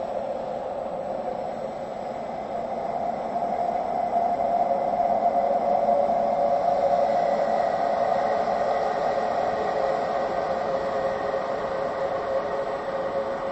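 A sound-effect drone: a steady hissing, rushing noise centred in the mid range, swelling louder a few seconds in and easing back, with a faint high steady tone coming in about halfway through.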